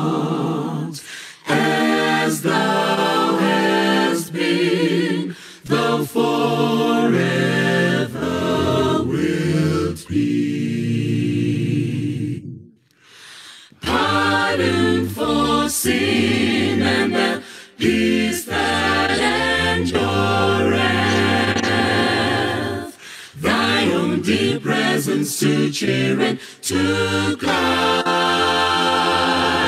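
Unaccompanied vocal group singing in harmony, phrase after phrase, with a short pause about halfway through.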